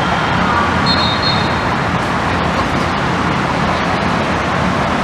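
Steady, loud rushing noise with no clear pitch, and a short, faint high whistle tone about a second in.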